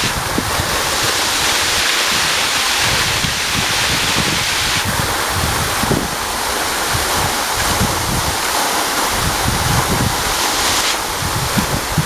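Waterfall crashing onto rocks close by: a loud, steady rush of falling water and spray. Irregular low rumbles from wind and spray buffeting the microphone run underneath.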